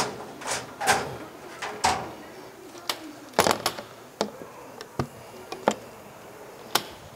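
Irregular knocks and clanks, about a dozen spread over several seconds, from fire-engine equipment being handled and stowed at the truck's compartments.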